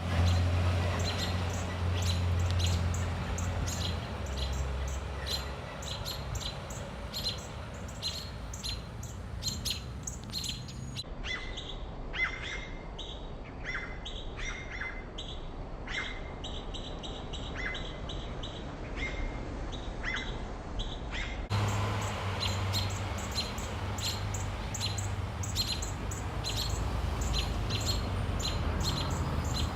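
Small birds chirping, short sharp chirps repeated several times a second, over a low steady hum.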